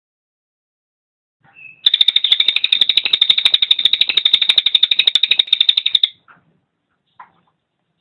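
Cililin songbird singing: after a short opening note, a rapid, even trill of sharp high notes lasting about four seconds, then a few faint short chips.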